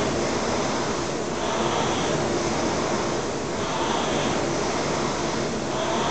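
Concept 2 indoor rowing machine's air-resistance flywheel whooshing in time with the rowing, swelling with each drive stroke about every two seconds.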